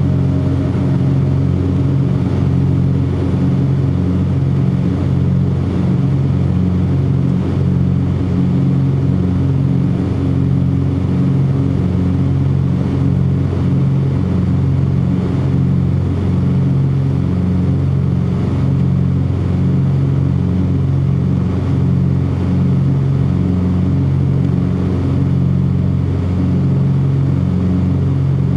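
Twin piston engines of a Cessna 404 Titan running steadily under power, with a slow, even pulsing in their drone.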